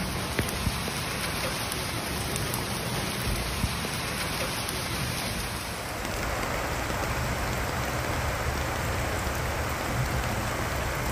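Heavy rain falling steadily on a flooded street, an even hiss without any distinct drops or tones; the sound shifts slightly about six seconds in.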